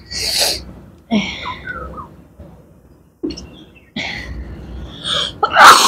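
Human sneezes and sharp sniffling breaths, set off by poking a stick into the nose. There are several short bursts, and the loudest comes near the end.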